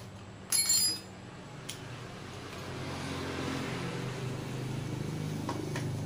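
A hand tool clanks against the metal hub of a motorcycle front wheel once about half a second in, with a brief ringing. Underneath, a vehicle engine runs and grows louder from about halfway through.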